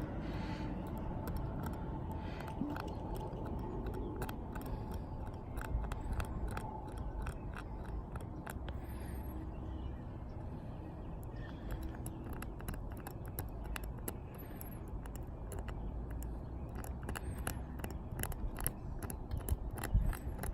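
Razor blade scraping dirt out of a windshield chip: a run of short, sharp scratchy clicks on the glass, denser in the second half, over a low steady rumble.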